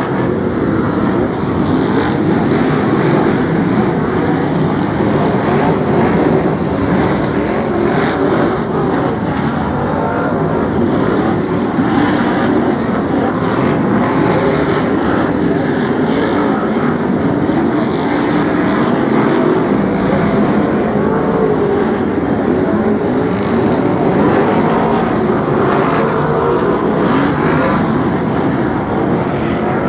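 A pack of BriSCA F1 stock cars racing, several engines running hard at once, their overlapping pitches rising and falling as the cars lap and pass.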